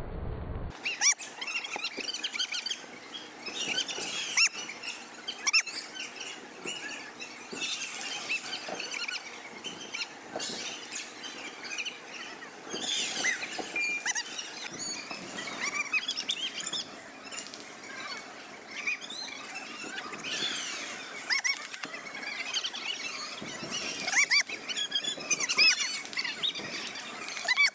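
Many short squeaks of feet on a taekwondo competition mat, with sharp slaps of kicks landing, over a noisy arena background.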